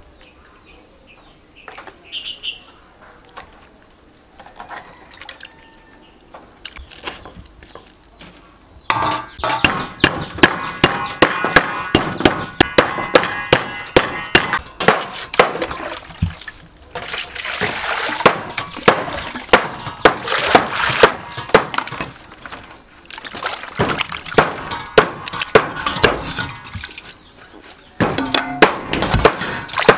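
A few light knocks at first, then from about a third of the way in a dense run of sharp knocks and clatter. After that, hands slosh and splash water in a stainless steel bowl while washing a whole raw chicken.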